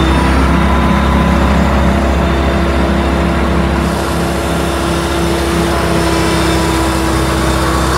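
Diamond Mowers 96-inch Hi Flow flail mower running on a John Deere compact track loader: the flail rotor spinning at speed on the loader's high-flow hydraulics, with the loader's diesel engine running under load. A loud, steady machine hum with a constant tone.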